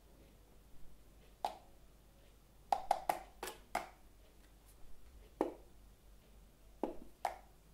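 About ten sharp percussive clicks or taps made by the solo performer, irregularly spaced, each with a brief hollow ring. A quick cluster of four or five falls about three seconds in.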